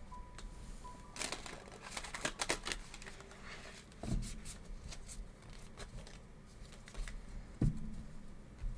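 A deck of oracle cards being shuffled and handled: irregular card flicks, clicks and rustles, with two dull knocks, one about halfway and one near the end.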